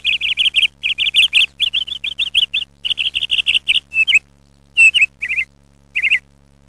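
Small bird chirping in fast runs of short, high calls, about five to six a second, broken by a couple of short pauses after the middle. A faint steady low hum runs underneath.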